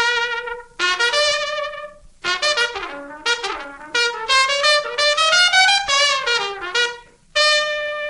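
Background music: an unaccompanied jazzy trumpet solo in short phrases with vibrato and sliding notes, ending on a long held note.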